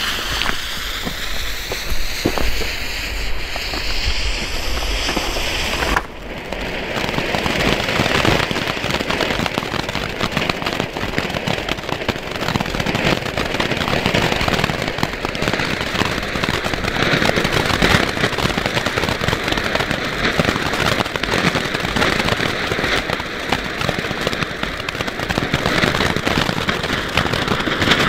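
WECO chrysanthemum ground fountain: a lit fuse hisses for about the first six seconds. Then the fountain erupts and sprays with a steady, dense crackling hiss.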